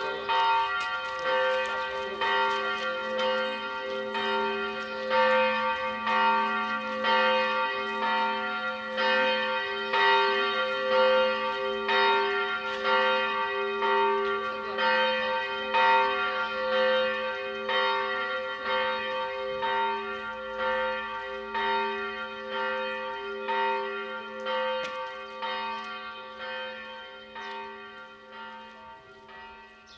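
A bell struck about once a second, its several tones ringing on between strokes; the ringing fades away over the last several seconds.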